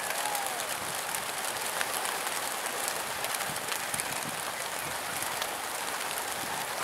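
A mass of racing pigeons taking off together from a transporter lorry at release: the wings of many birds flapping at once make a steady, crackling noise dotted with small clicks.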